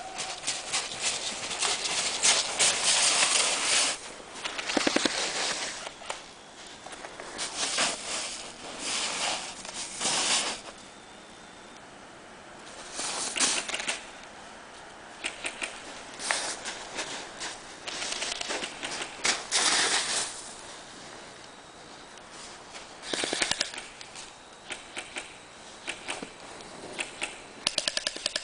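Airsoft guns firing in rapid bursts of sharp clicks, several bursts of one to four seconds separated by quieter gaps.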